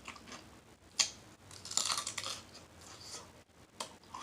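Close-miked eating sounds: chewing and lip smacking, with a sharp click about a second in and a noisier, crunchier stretch near the middle.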